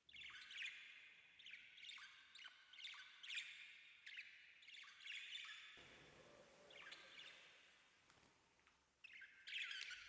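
Indian ringneck parakeet giving faint, repeated short chirps and chattering calls while its head is being scratched, pausing briefly, then a quick burst of calls near the end.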